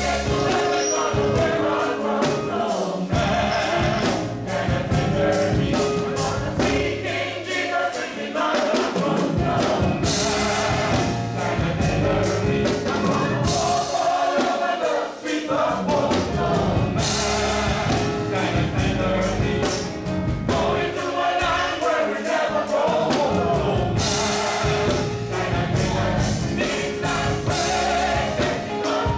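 Gospel choir singing with a live band, over a steady drum beat and bass line.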